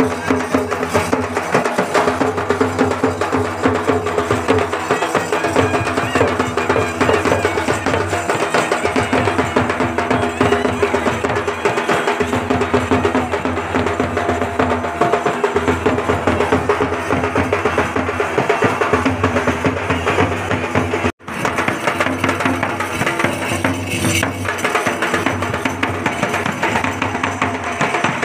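Traditional folk dance music: quick, steady drum and percussion beats under steady held tones. The sound drops out for an instant about 21 seconds in.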